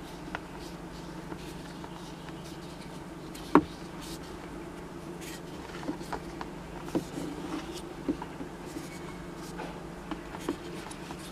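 Handling noise of a used rubber timing belt being turned over in the hand: light rubs and taps, with one sharp click about three and a half seconds in and a few more knocks later, over a steady low hum.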